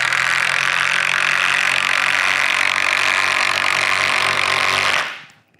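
Two Milwaukee M12 FUEL Stubby 3/8-inch impact wrenches, the new 2562-20 and its predecessor, running together on speed 3 and hammering hex-head 6-inch by 1/4-inch lag screws into lumber. The sound is loud and steady and stops about five seconds in as the lags are set.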